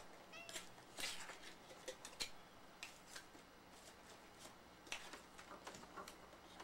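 A domestic cat gives a short, faint meow about half a second in. A few light, scattered clicks and knocks follow.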